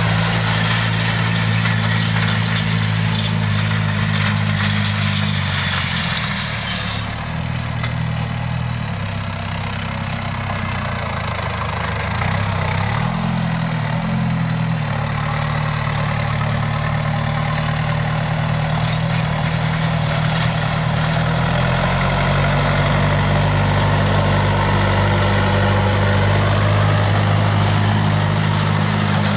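Tractor diesel engine running steadily under load while pulling a mounted seed drill through the field. The engine note wavers and weakens briefly about midway, then comes back steady and stronger toward the end.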